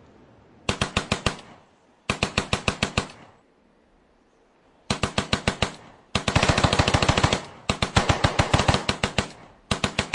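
Automatic gunfire in short bursts: six bursts of rapid shots at about eight to ten shots a second, with a denser, louder burst in the middle. The tail of an earlier blast fades out just before the first burst.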